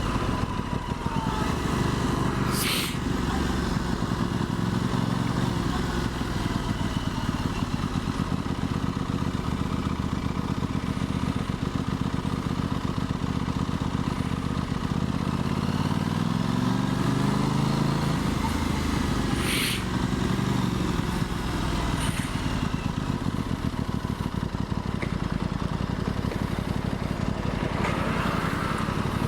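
2023 Aprilia Tuono 660's parallel-twin engine running under way. The engine note climbs for a few seconds past the middle, then falls back. There are two short sharp clicks, one near the start and one about two-thirds through.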